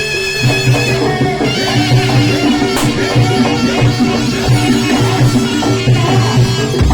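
Live Javanese jaranan accompaniment: a shrill, reedy shawm (slompret) holding a melody over gamelan percussion, with quick drum strokes and gong tones.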